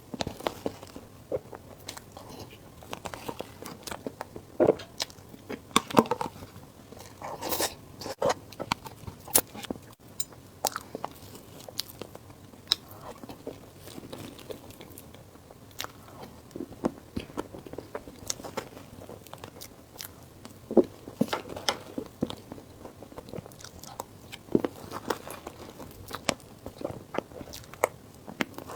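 A person eating close to the microphone: irregular biting and chewing with sharp mouth clicks, a few bites louder than the rest.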